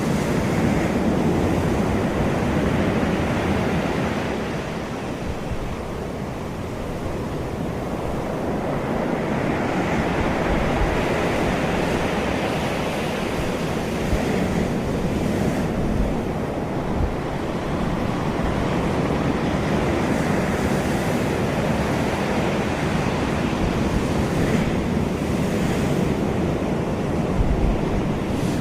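Ocean waves breaking and washing on a beach, a steady surf that swells and eases, with wind buffeting the microphone.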